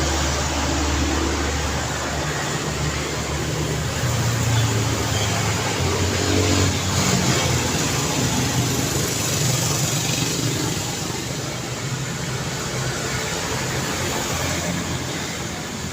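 Busy street traffic: vehicle engines running and passing close by over steady road noise, a little louder around the middle.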